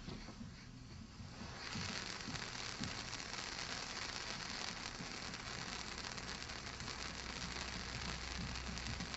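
Krazy Klock ground-fountain firework catching from its fuse and spraying silver sparks with a steady hiss, which starts about a second and a half in.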